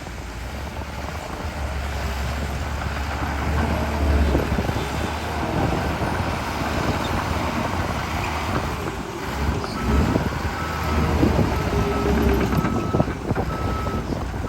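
Caterpillar 816D's diesel engine running under load, swelling and easing as the machine works the dirt. From about ten seconds in, a reversing alarm beeps steadily, about once a second.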